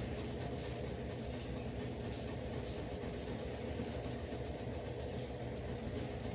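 Steady background noise: an even hiss with a low hum underneath, unchanging throughout, with no distinct events.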